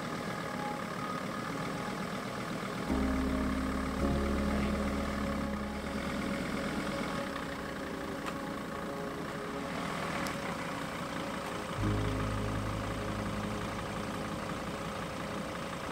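Mercedes Sprinter camper van's engine running as the van is moved slowly forward. A deeper low rumble comes in suddenly about three seconds in and again about twelve seconds in.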